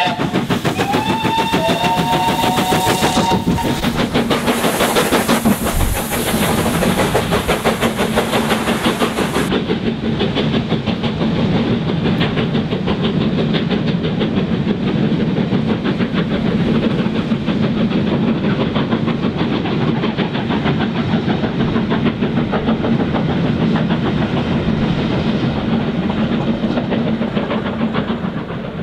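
GWR Hall class 4-6-0 No. 4965 sounds its steam whistle for about three seconds, then passes close by with a loud rush of steam hiss. Its coaches follow with a steady rumble and a fast, even clickety-clack of wheels on rail, which fades near the end.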